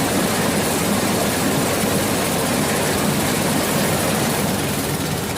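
A machine running steadily, a loud, even noise that holds without change.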